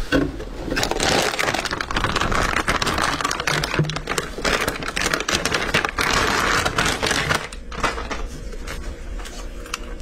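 Dense crinkling and crackling handling noise with many small clicks, from about a second in until about seven and a half seconds in, then only scattered quieter clicks.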